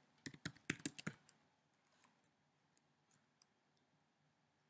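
Keystrokes on a computer keyboard: a quick run of about six key clicks in the first second, then a few faint taps in near silence.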